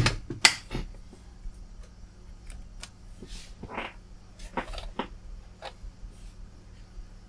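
Scattered clicks and taps of hands handling things on a workbench. The loudest two come at the very start and about half a second in, with a short rustle near four seconds, over a faint steady hum.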